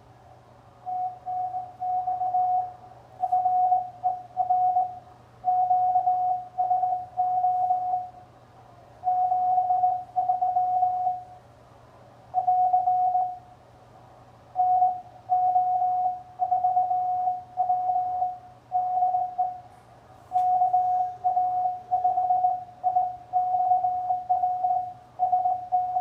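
Morse code (CW) on an amateur radio transceiver on the 20-metre band: a single steady mid-pitched beep keyed on and off in dots and dashes, in letter groups with short gaps, over a faint low hum.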